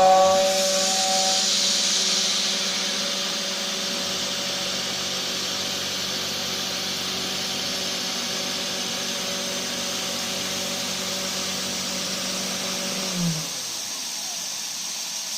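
Homemade CNC machine's spindle motor running with a steady hum and hiss, a little louder in the first couple of seconds, then winding down in pitch and stopping about 13 seconds in; a steady hiss carries on after it.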